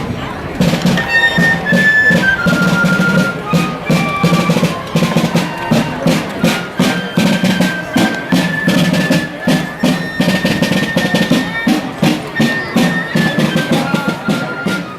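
A parade band playing as it passes: a high stepping melody over steady, closely spaced drumming, with a steady low tone underneath.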